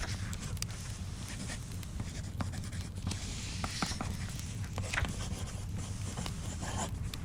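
Pen or pencil scratching across paper in stretches of writing strokes, over scattered small clicks and crackles and a steady low rumble.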